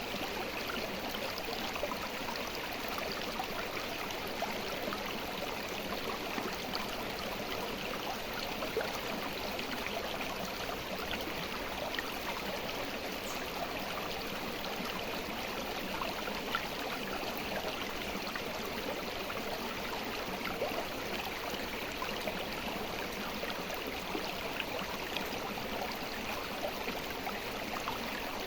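A river flowing: a steady rush of water with small, irregular splashes.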